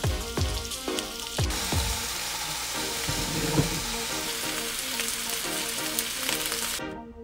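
Onions and chicken breast sizzling as they fry in a nonstick frying pan, over background music. The sizzle comes in about a second and a half in and cuts off suddenly near the end.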